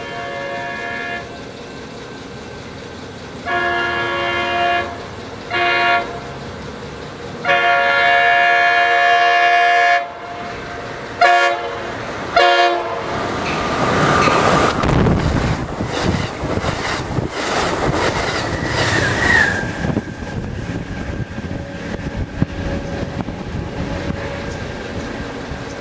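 Passenger train's multi-chime air horn sounding six blasts of mixed length, the longest about two and a half seconds, as the train approaches. The train then rushes past at speed with wheel clatter on the rails, and the noise fades after about seven seconds.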